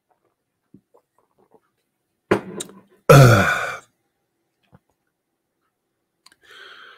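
A man's loud, satisfied 'aah' after a swig of beer, falling in pitch and lasting under a second, about three seconds in. A short sharp smack comes just before it.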